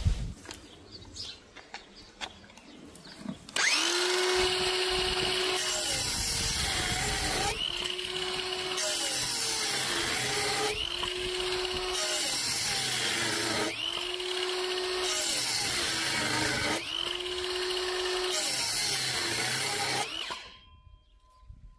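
18V Panasonic EY3551 cordless circular saw running, its motor spinning up with a rising whine about every three seconds, five times over. It starts a few seconds in after some small clicks and cuts off near the end.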